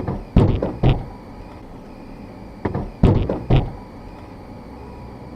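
Loud heavy thumps in two groups of about three, the groups roughly two and a half seconds apart, over a steady low rumble.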